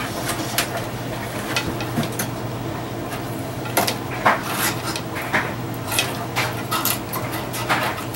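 The metal chassis of a 1960s Magnavox console stereo being handled and lifted out of its wooden cabinet, its wires dragging: irregular knocks, clinks and rattles of metal against wood. A steady low hum runs underneath.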